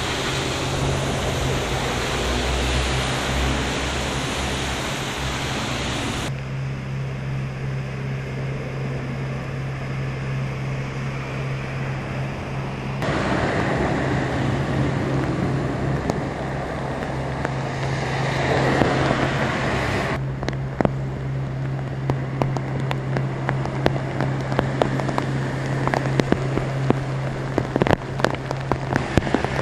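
Heavy rain pouring on a flooded street with cars driving through the water, tyres hissing and splashing. After a few cuts the rain is lighter on a wet street with a car passing, and in the last third raindrops patter with many sharp ticks close by, over a steady low hum.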